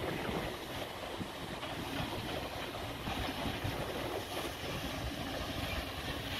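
Wind buffeting the microphone: a steady, uneven rumbling noise with no clear rhythm.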